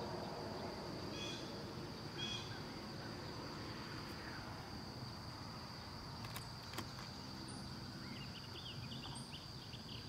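Quiet outdoor ambience: a steady high insect drone, with single bird chirps about one and two seconds in and a flurry of chirps near the end. A couple of faint clicks fall in the middle.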